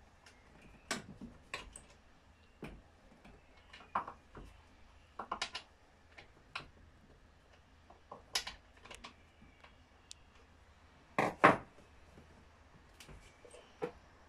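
Irregular clicks and knocks of metal and plastic parts as the bar and chain of an Alpina ACS 46 chainsaw are handled and fitted by hand, with a loud double knock about eleven seconds in.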